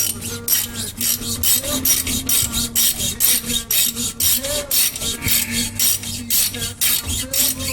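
Ratchet clicking steadily, about four clicks a second, as the 11 mm hex caliper pin bolt is worked loose, over a song playing in the background.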